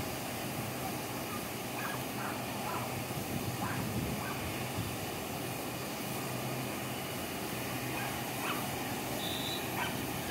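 Taiwan Railways steam locomotive DT668, a DT650-class 2-8-2, drawing slowly toward a station some way off: a steady rush of steam with a low hum under it, and scattered short calls from a waiting crowd. Two short high tones sound near the end.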